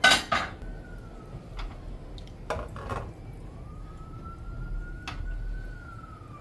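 Metal stew pot and its lid knocking and clattering against a gas stove as it is handled, sharpest right at the start with a few lighter knocks later. A faint siren wails slowly up and down behind it.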